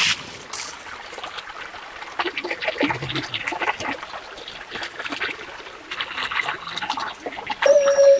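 Water splashing and trickling in irregular bursts. Near the end a steady held music note comes in and is louder than the water.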